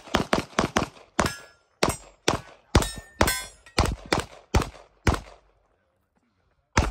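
Rapid pistol fire from a Staccato P 2011-style pistol: about fifteen shots in quick pairs and short strings over five seconds, then a pause and one more shot near the end.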